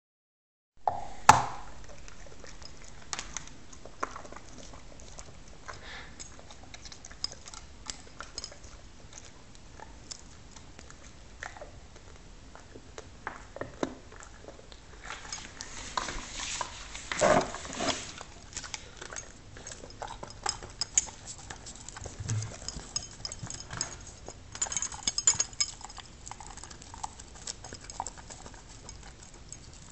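A dog licking and gnawing a hard-candy lollipop on a tile floor: wet licking with many irregular sharp clicks of the candy against its teeth and the tile, busiest a little past the middle.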